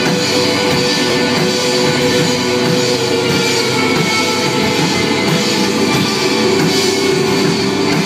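A live rock band playing, with electric guitars and a drum kit.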